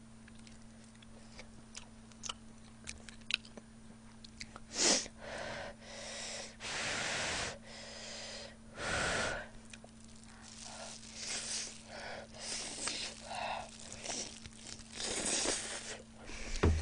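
Sharp breaths sucked in and blown out through the mouth while eating food that is hot and very spicy, in several noisy bursts, the longest about a second, with small wet mouth clicks in between. A faint low hum runs underneath.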